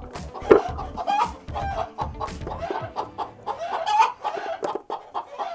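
Hens clucking and calling in short, repeated notes, with a few sharp clicks among them.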